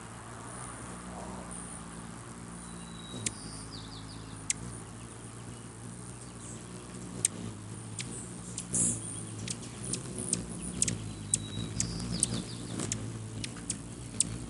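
Rufous hummingbirds hovering close by, their wings making a steady low hum, with sharp chip calls and squeaky chatter that come thick and fast in the second half as the birds squabble over the perch.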